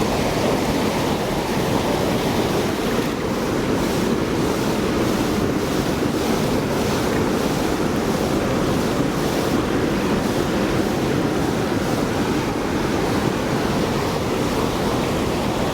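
Steady rush of flowing river water, unbroken and even in level throughout.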